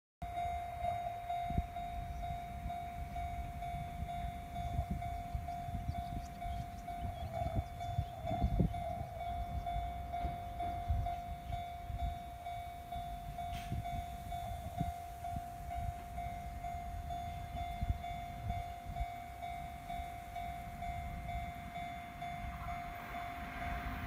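Japanese railway level-crossing warning bell sounding a steady, unbroken tone while the crossing lights flash and the barriers are down, with wind rumbling on the microphone. Near the end an approaching train's rising rail noise starts to build.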